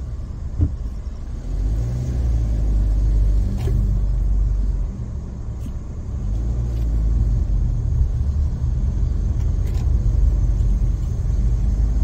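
Low, steady rumble of engine and tyres heard inside a car's cabin as it drives slowly along a narrow rough concrete road, with an occasional light knock.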